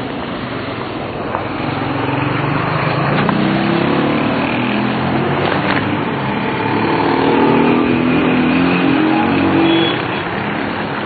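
Street traffic: car engines running and passing close by, with a steady road noise that swells in the middle and eases near the end.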